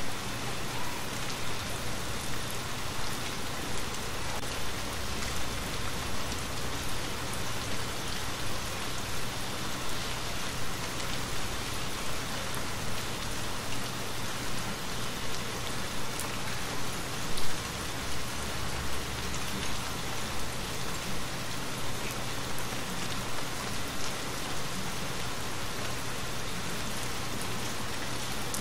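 Steady rain falling on a wooden cabin, an even hiss with many small patters, and one brief louder thud about two-thirds of the way through.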